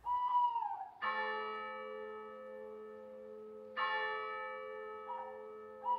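A bell struck twice, about three seconds apart, each stroke ringing on and slowly fading. A wavering, slightly falling high call is heard before the first stroke and again near the end.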